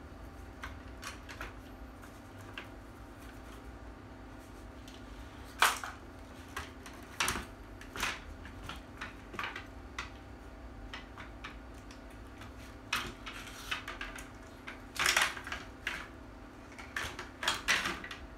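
Parts of a replica pulse rifle being handled and fitted together: irregular clicks, clacks and knocks, the loudest about six seconds in and a cluster near the end, over a steady low hum.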